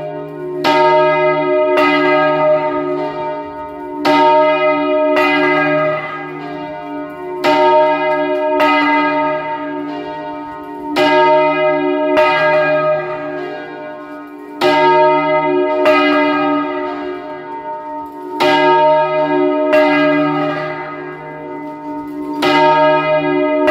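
Large church bell turned full circle on its wooden headstock by hand, its clapper striking about fourteen times in pairs, each stroke ringing on over a steady low hum.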